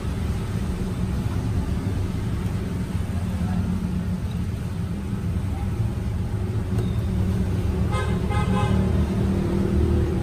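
Steady low rumble of road traffic passing close by. About eight seconds in, a vehicle horn gives a short run of beeps.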